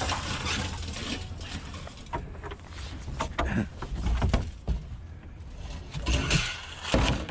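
Scrap metal being handled and loaded: scattered knocks and clanks, with a few louder knocks in the second half, over a steady low rumble.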